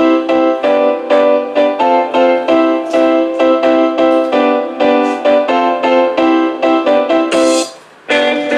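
Piano music played through an F&D E200 mini soundbar: a quick run of notes with almost no bass. Near the end it stops briefly and a different track begins.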